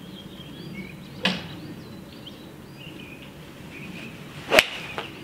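A TaylorMade M2 7-iron swung down and striking a golf ball cleanly off a range mat, a short swish ending in one sharp, loud click near the end: a well-struck shot. A fainter knock comes about a second in, over faint bird chirps.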